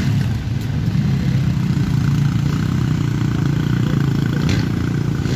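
Harley-Davidson Pan America 1250's V-twin engine running steadily at low revs.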